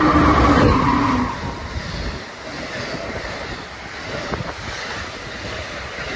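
An Amtrak train horn sounding a steady chord that ends about a second in. It is followed by Amtrak passenger cars passing close by, with rushing wheel and air noise and a few clicks.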